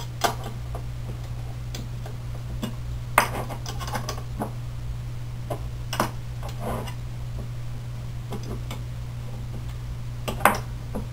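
Steel nuts and washers clicking and clinking against steel threaded rod as they are run on and snugged up by hand, in scattered irregular clicks with a couple of sharper ones, over a steady low hum.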